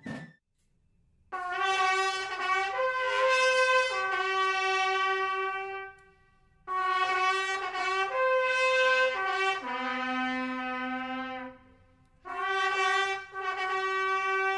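Trumpet fanfare of Yogyakarta palace-guard (bregada) marching music: held brass notes in three phrases, separated by short breaks.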